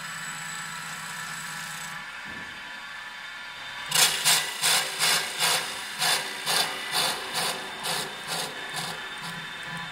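Steady machine hum from a mini CNC wood lathe. About four seconds in, a run of about a dozen short buzzing strokes begins, two to three a second, loudest at first and fading: the stepper-driven carriage being jogged in short moves.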